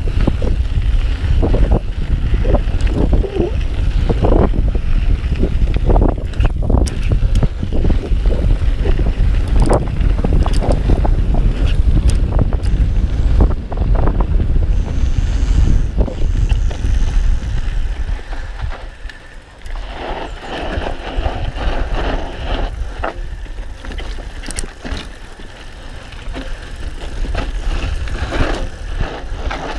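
Mountain bike descending a dirt and gravel track at speed: wind buffeting the microphone, tyres on loose ground, and frequent clicks and rattles from the bike. The wind rumble eases about two-thirds of the way through.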